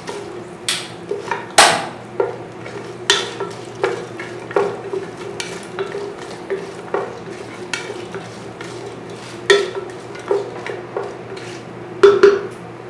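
A wooden spatula stirring whole spices and cashews frying in oil in a nonstick pot. It knocks and scrapes against the pan at irregular intervals while the oil sizzles.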